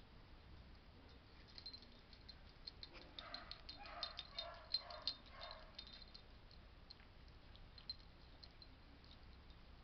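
Faint sounds of a French bulldog puppy nosing about: a short run of soft sniffs and snorts with light clicks, clustered between about three and six seconds in, with near silence either side.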